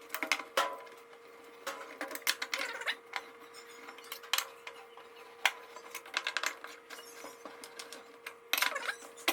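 Rapid metal clicking and clinking as the small black screws of a washing machine's motor plate are loosened with an 8 mm tool and handled, in irregular clusters, with a faint steady hum underneath.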